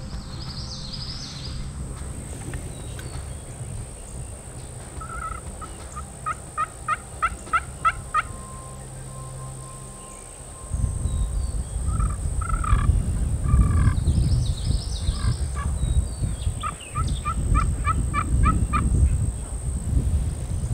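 Wild turkeys calling: a run of about eight short, evenly spaced yelp-like notes, then gobbling, then another run of quicker notes near the end. A low rumble comes in about halfway and stays under the calls.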